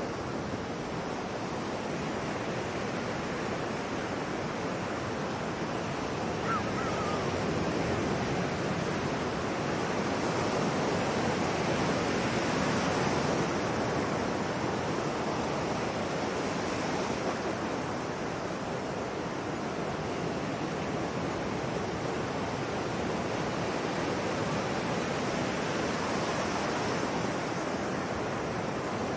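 Ocean surf washing on a shore, a steady rush of waves that swells louder in the middle and eases off again.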